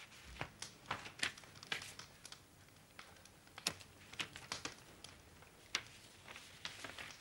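Open coal fire in a grate crackling softly, with scattered irregular sharp pops and ticks a few times a second.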